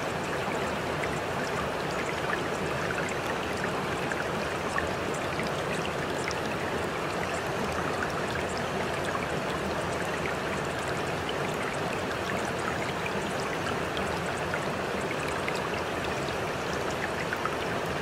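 Steady rain: an even, unbroken hiss with many small drop ticks scattered through it.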